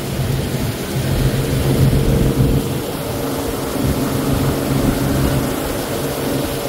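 An engine running steadily with a low hum, under a loud, even rushing noise.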